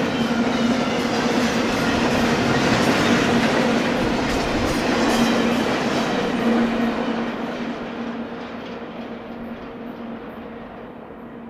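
Double-stack intermodal freight cars rolling past on the rails: a loud rumble and rattle with a steady hum and clicking wheels over the rail joints. About seven seconds in, the last cars go by and the sound fades steadily as the train moves away.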